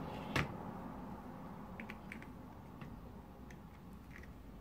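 One sharp click about half a second in, then a few faint light ticks: small hand tools (tweezers and a soldering iron tip) touching the car radio's metal cage and circuit board during soldering of the cage lugs.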